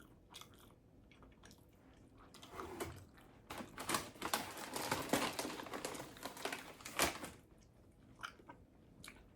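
Close-miked chewing and biting of a tuna melt sandwich: scattered wet mouth clicks at first, then a dense stretch of crunchy chewing in the middle few seconds, easing back to occasional clicks near the end.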